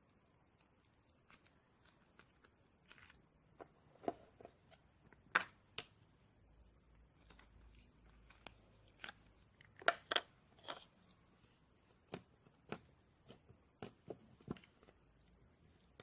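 Irregular small crackles, clicks and pops from sponge slime being handled, loudest around five and ten seconds in.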